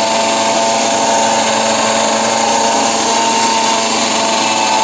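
Electric mixer grinder with a stainless-steel jar running steadily, a continuous motor whine over the rush of grinding.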